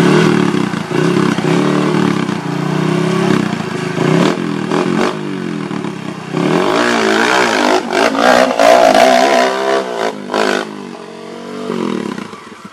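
Dirt bike engine revving hard and unevenly, rising and falling in pitch as the bike labours up a steep hill climb, with a few knocks and clatters from the bike on the rocky ground.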